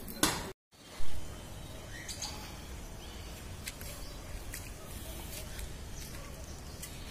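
Outdoor ambience with a steady low rumble and scattered faint bird chirps. Near the start the sound drops out completely for a moment, and a sudden loud thump follows at about one second.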